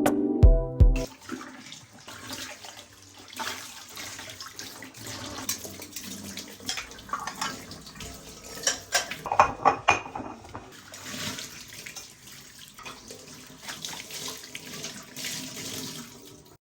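Tap water running into a sink, with scattered clinks and knocks of items being handled. The knocks are loudest about nine to ten seconds in.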